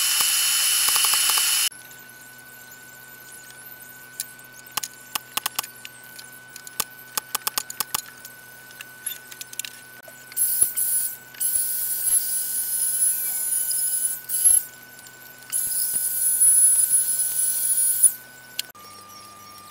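Workshop sounds. A loud hiss cuts off suddenly about two seconds in, followed by scattered light clicks and taps. After that a small corded power tool runs with a high-pitched whine in two bursts of a few seconds each.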